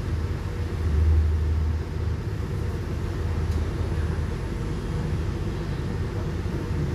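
Steady low rumble of a regional passenger train running along the line, heard from inside the carriage, briefly louder about a second in.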